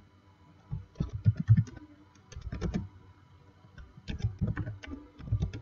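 Typing on a computer keyboard: three short runs of keystrokes with pauses between them.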